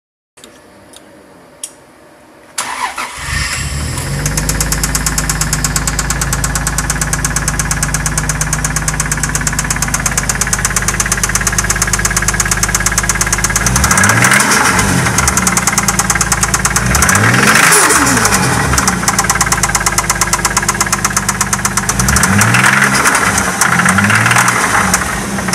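Toyota 2JZ-GTE twin-turbo inline-six starting about two and a half seconds in, then idling with a fast, regular knock and revved briefly a few times. The knock is the fault the owner is showing.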